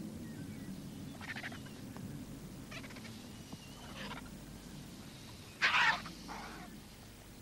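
Vultures calling: a few short wavering calls, the loudest about five and a half seconds in, over a low steady rumble.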